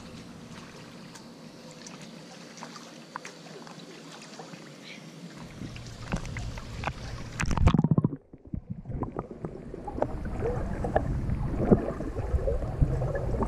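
Pool water lapping and sloshing against a camera held at the water's surface, with small splashes. About eight seconds in, the sound turns muffled, with underwater gurgling and bubbling as the camera goes below the surface.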